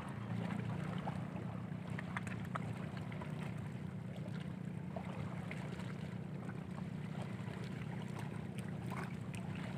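Steady low rumble of sea waves and wind at a rocky shore, with faint scattered clicks.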